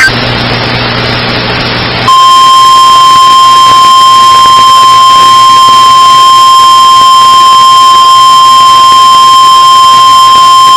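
NOAA Weather Radio / EAS warning alarm: about two seconds of radio hiss, then the single steady 1050 Hz attention tone comes on and holds, signalling a tornado warning about to be read.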